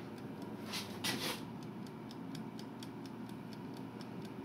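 Mondial air fryer running: a steady fan hum under the rapid, even ticking of its mechanical timer counting down. Two brief rustles of handling fall about a second in.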